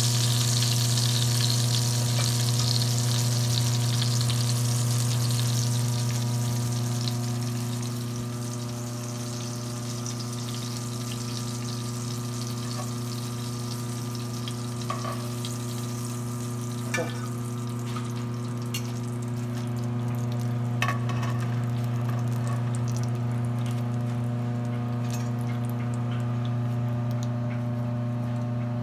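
Breaded mozzarella cubes sizzling in shallow oil in a frying pan, loudest at first and dying down after several seconds, over a steady low hum. A few light clicks of metal tongs come in the second half.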